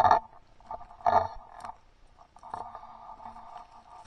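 Rustling and scraping of brush and handling against a gun-mounted camera as the hunter moves through thick vegetation, in uneven bursts, loudest at the start and again about a second in, with a few sharp clicks.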